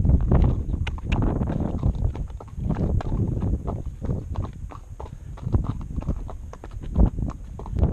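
Hoofbeats of a ridden mustang horse: a continuing series of uneven clip-clop hoof strikes on the ground.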